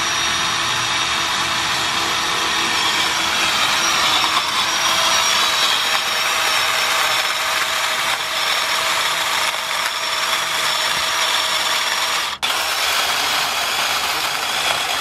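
DeWalt cordless pole saw, a small chainsaw on a telescoping pole, running steadily as its chain cuts through the base of a Christmas tree trunk. The sound breaks off for an instant about twelve seconds in.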